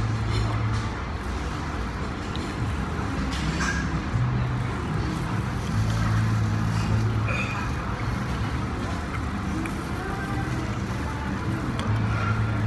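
Steady low rumble of background noise, with a few brief clicks and clatter.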